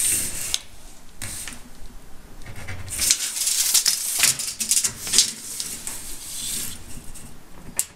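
Irregular scratchy strokes and rustling of hand work at a cabinet panel while measuring and marking hole positions, busiest around the middle.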